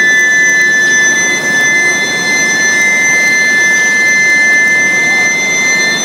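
Inline billet induction heater running: a loud, steady high-pitched whine of two close tones from its induction coils at their working frequency, over a constant machine noise.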